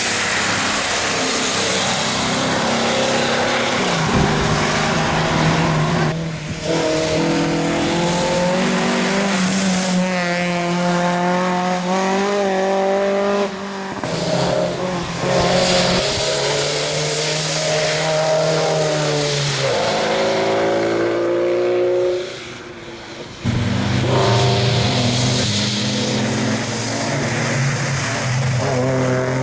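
Rally cars on a wet tarmac road passing one after another, engines revving up and dropping back through the corners over the hiss of tyres on water. The sound breaks off sharply a few times between passes.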